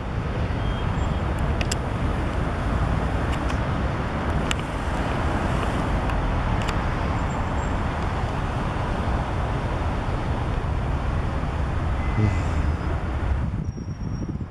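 Steady low rumble of outdoor city street noise, with a few faint clicks and chirps on top. It drops off sharply near the end.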